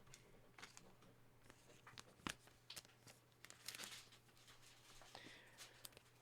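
Faint clicks and rustles of trading cards being handled, with one sharper click a little past two seconds in and a short rustle near four seconds.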